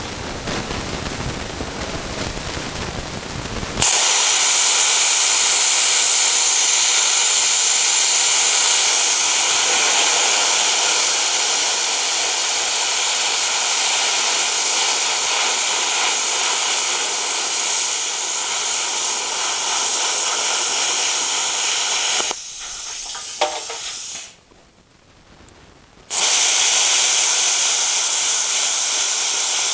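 Plasma cutter cutting through quarter-inch steel plate: a loud, steady hiss of the arc and air jet that starts sharply about four seconds in, after a quieter hiss. The arc cuts out a few seconds before the end, leaving a short near-quiet pause, then relights for the next cut.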